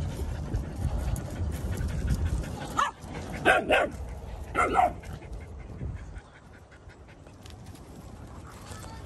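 A dog barking: four short, sharp barks between about three and five seconds in, over a low rumble that fades after about six seconds.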